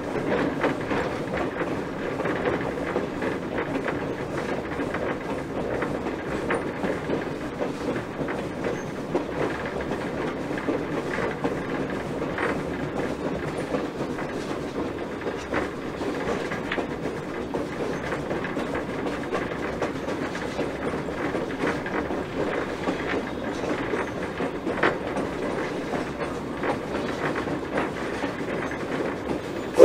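A 1920 steam switcher locomotive rolling along the track, heard from its front pilot: a steady rumble and rattle of wheels on rail, with scattered clicks over the rail joints.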